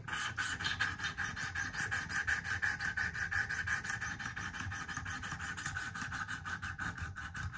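Sharpening stone on a Wicked Edge guided-rod arm rubbed along a recurve pocket knife blade in quick, even, repeated strokes. These are test passes over the marker-coated bevel to see where the stone is touching at the set angle.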